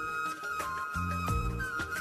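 Background music: a melody with gliding notes over a steady beat.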